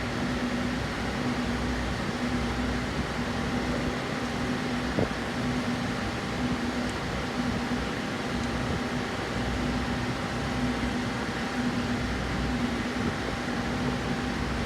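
Steady mechanical hum, like a fan or air-conditioning unit running, with a single short click about five seconds in.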